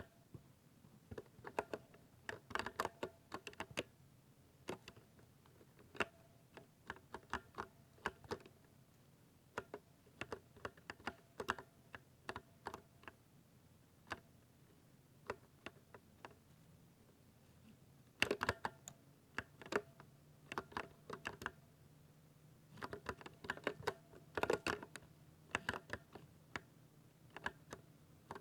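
Computer keyboard typed on in irregular flurries of sharp key clicks, with a sparse lull about halfway through and dense bursts of keystrokes later on.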